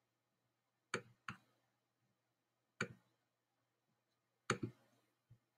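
Short sharp clicks of a computer mouse button: two about a second in, one near three seconds, a quick double click at about four and a half seconds, and a faint one near the end.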